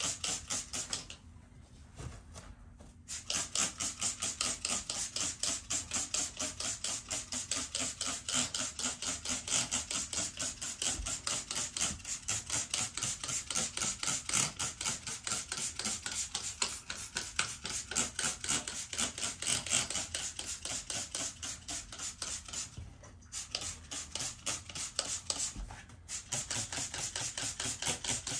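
Trigger spray bottle of Vital Oxide squirted over and over in quick succession, a short hiss with each squeeze, several a second. The spraying starts a few seconds in and runs on with a couple of brief breaks near the end.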